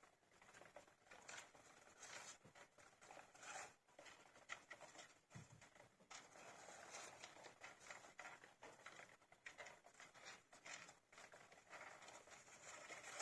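Faint, irregular scratching and rustling of baby hamsters scrabbling about, made of many short scrabbles with no clear squeaks.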